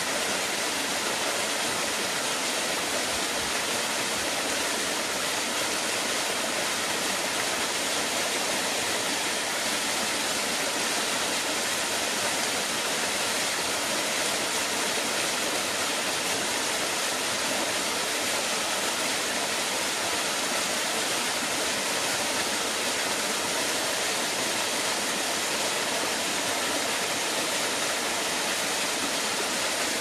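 Small waterfall cascading over rock into a shallow pool: a steady, even rush of falling water, mostly hiss and splash with little deep rumble.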